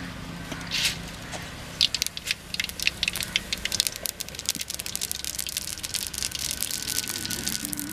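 Cooking oil heating in a blackened kadai on a wood-fired stove, crackling and spitting with small pops that come thick and fast from about two seconds in.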